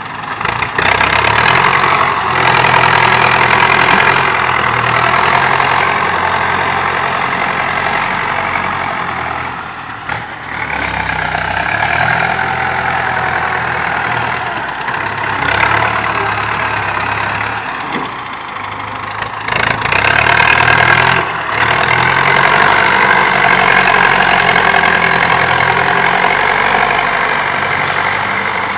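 Diesel farm tractor engine running under load as it pulls a disc harrow through rough, freshly dug soil. The sound swells and dips a few times as it works.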